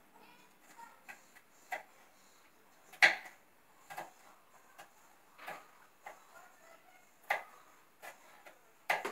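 Kitchen knife slicing yellow bell pepper on a cutting board: a dozen or so sharp, uneven knocks of the blade hitting the board, the loudest about three seconds in.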